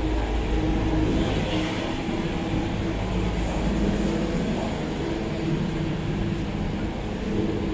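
City street traffic: a steady low rumble with the drone of an engine running.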